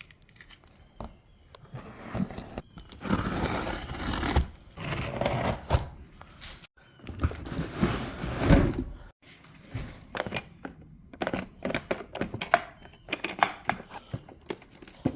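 Packaging being torn and crinkled in rough stretches, followed by a run of quick clicks and knocks of things being handled.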